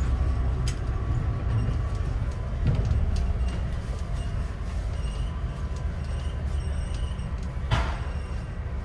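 Scania N94UD OmniDekka double-decker bus heard from its upper deck while moving slowly: a steady low rumble from its five-cylinder diesel and drivetrain, with light rattles and clicks from the body, and a brief hiss about eight seconds in.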